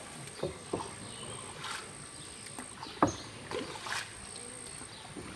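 A boatman's paddle dipping and pulling through still lake water beside a small wooden boat, in a few irregular strokes with sharp splashes or knocks. The loudest stroke comes about three seconds in.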